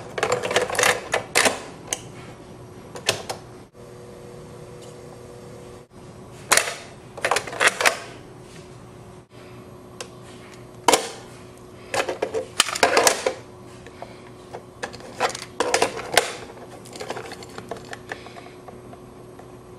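Plastic clicks and clacks from a portable cassette recorder being handled: a cassette being loaded into the deck and the piano-key buttons pressed. The sounds come in several short bursts of quick clicks.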